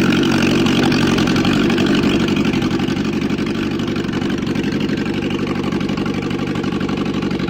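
Mitsubishi 4G32 four-cylinder engine in a Dodge Colt, running steadily.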